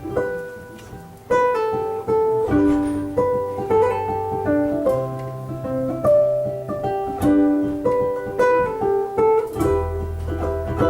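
Live band music: a guitar picking a melodic intro of single notes, with a low sustained note joining near the end.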